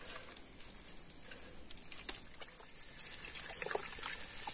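Small splashes, drips and squelches of hands working in shallow muddy water, in scattered short strokes that grow a little busier after about three seconds. A steady high-pitched drone runs behind them.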